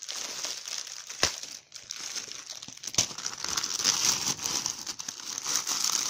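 Plastic mailer bag crinkling as hands tear it open, with two sharp snaps, one about a second in and one about three seconds in.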